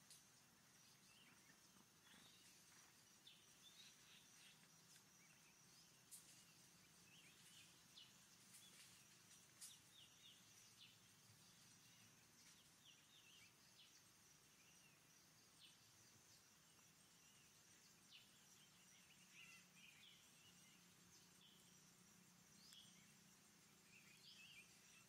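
Near silence in forest: faint, scattered short bird chirps over a steady high drone.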